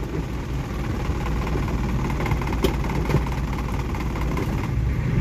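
Vehicle engine idling in stalled traffic: a steady low rumble, with two faint ticks near the middle.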